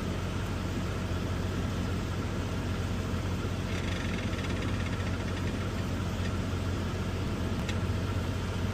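A heavy truck's diesel engine idling steadily, an even low hum.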